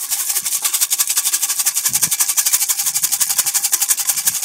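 Grain shaken in a feed can to call racing pigeons in to trap: a fast, even rattle of about a dozen hits a second that keeps going without a break.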